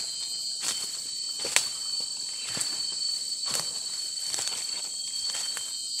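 Footsteps on dry leaf litter at a walking pace, about one step a second, over a steady high-pitched drone of forest insects.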